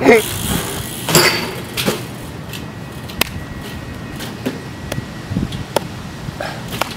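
A street mountain bike's tyres and frame knocking on a concrete ledge: two sharp knocks in the first second and a half as the bike is lifted and set down, then scattered lighter clicks and taps as it rolls and balances.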